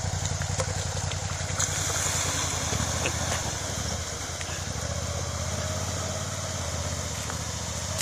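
Suzuki SV650's V-twin engine running as the motorcycle rides through a shallow creek, with water splashing around the wheels. The engine grows fainter as the bike moves away across the water.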